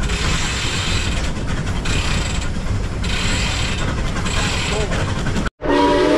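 Geared steam logging locomotive working hard close by: a loud rush of steam with the clatter of its drive gears, swelling and fading in slow pulses. About five and a half seconds in it cuts off abruptly and the locomotive's steam whistle starts, a chord of several steady tones.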